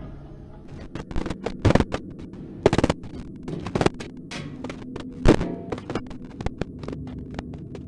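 Spooky soundtrack: a low steady drone under dozens of irregular sharp crackles and pops, a few much louder than the rest.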